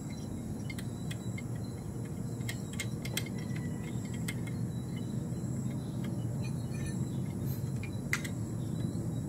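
Crickets chirring steadily over a low steady rumble. A few faint, light metal clicks come through as a cylinder-head nut on a Yamaha RX two-stroke is worked off by hand.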